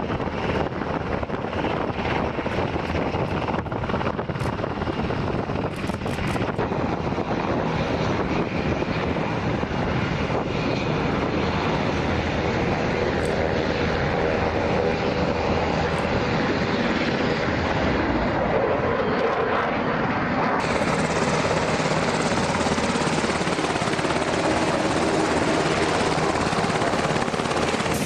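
Sikorsky HH-60 Pave Hawk helicopter running close by, its twin turboshaft engines and main rotor making a steady, loud rush with a rapid rotor beat as it hovers low and taxis.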